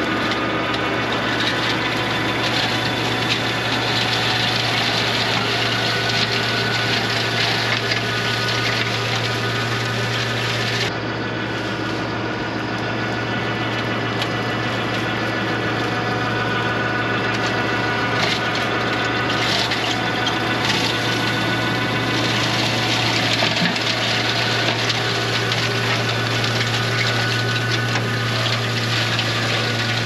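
Tractor-driven flail mower running steadily as it shreds dry grass and brush, over the steady drone of the TYM 574 tractor's diesel engine.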